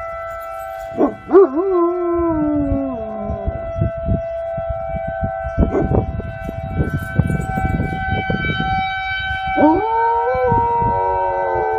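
Komondor howling twice: a wavering howl about a second in that slides down over a couple of seconds, and a second long howl near the end that rises, holds and slowly falls. A steady high tone runs underneath throughout.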